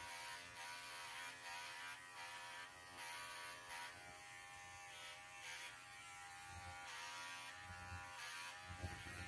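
Electric pet clipper running with a steady buzz as it trims a standard poodle's coat, cutting off sharply at the end.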